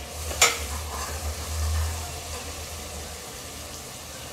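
Masala frying in oil in an open pressure cooker while a metal ladle stirs it: a sharp clink of the ladle against the cooker about half a second in, then a faint sizzle over a steady low hum.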